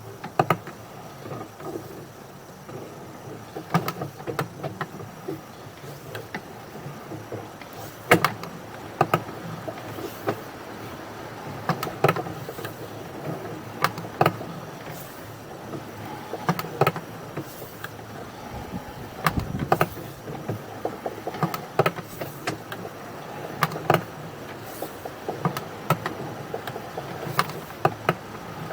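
Irregular clicks and knocks from a sewer inspection camera and its push cable being fed through the pipe, over a steady low hum.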